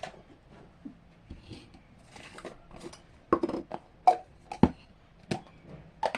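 Slime packaging being handled: light rustling of plastic, then five or so sharp clicks and knocks in the second half.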